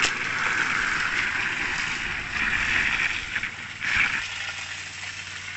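Sand-and-water slurry gushing from a discharge pipe and splashing into a flooded mine pit, with the suction pump's engine running steadily underneath; the splashing swells briefly about four seconds in.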